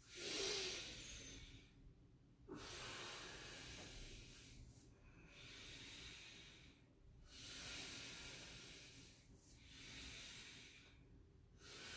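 A person breathing slowly and deeply in and out, about six faint breaths in a row, each lasting a second and a half to two seconds, during a yoga stretch.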